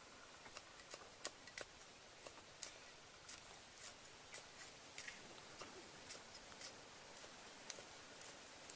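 Kitchen knife chopping red chilies on a thick round wooden chopping board: faint, uneven taps of the blade striking the wood, about two to three a second.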